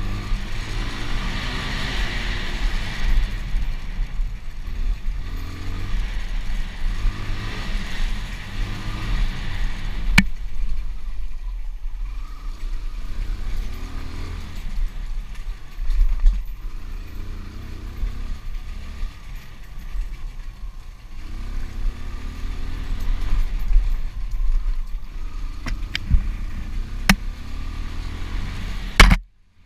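Motocross bike engine revving up and down as it is ridden hard over a rough dirt trail, heard from the rider's helmet with a heavy low rumble. Several sharp knocks near the end, and the sound cuts out briefly just before the end.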